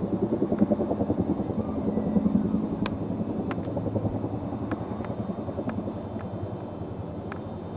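Helicopter rotors with a fast, even low pulsing that eases off a little in the second half. A few brief sharp clicks sound over it from the middle on.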